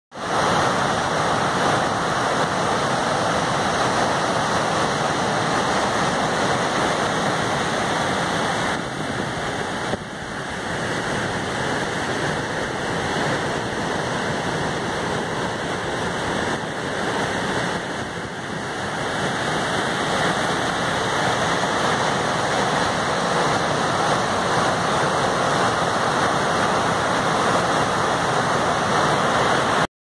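Urriðafoss, a high-flow waterfall and rapids on the Þjórsá river, rushing steadily, with two brief slight dips in level, about a third of the way in and again just past halfway.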